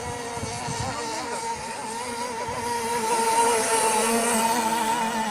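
Radio-controlled model boat's motor running with a steady, slightly wavering whine, growing louder about three seconds in and easing off near the end.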